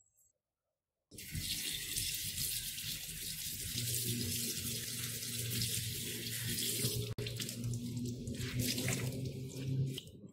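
Kitchen tap running into a sink, the stream splashing onto a cloth towel held under it. It starts about a second in and runs steadily, then turns uneven near the end as the soaked towel is wrung out.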